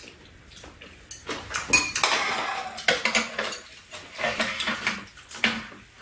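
Metal spoons and chopsticks clinking and scraping against bowls and a serving tray during a meal, a run of sharp clinks, loudest about two seconds in.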